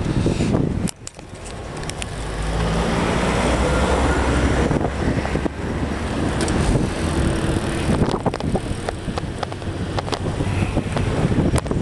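Wind rushing over the microphone of a handheld camera carried on a moving bicycle, mixed with road traffic, with frequent small clicks and knocks from the bike and the camera being handled. The noise drops briefly about a second in, then builds back up.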